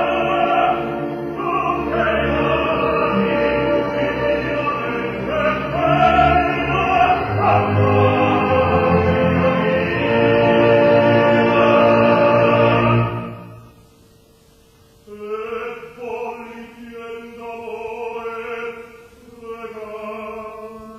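Operatic tenor singing with orchestra in a live performance, holding loud, full-voiced phrases. The music breaks off about two-thirds of the way through, and after a short pause a much quieter passage follows.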